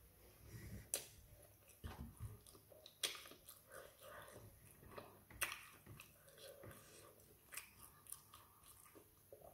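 A person chewing a mouthful of fried plantain close to the microphone: wet chewing and lip smacks with scattered sharp clicks at an irregular pace.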